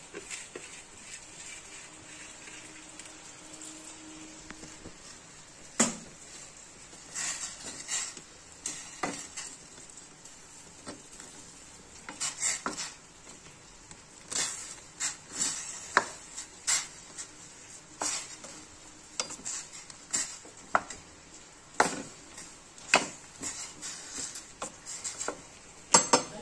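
Wooden spatula stirring Maggi instant noodles in a stainless steel saucepan of boiling water, knocking against the pan many times over a steady bubbling hiss. The first knock comes about six seconds in, and the knocks come often after that.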